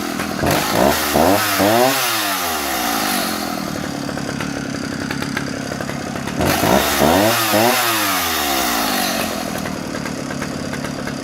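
Vintage Husqvarna A65 65cc two-stroke chainsaw engine idling, revved up and back down to idle twice, about a second in and again about halfway through.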